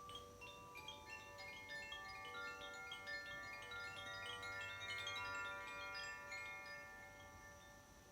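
Makino-style chimes played solo: a stream of struck metal tones, several a second, each ringing on and overlapping the others, thinning out near the end.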